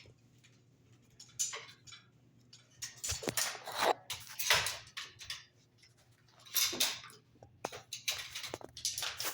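Irregular scraping and rustling at a workbench: several rough strokes of half a second to a second each, mixed with light clicks and knocks as hand tools and wood are handled.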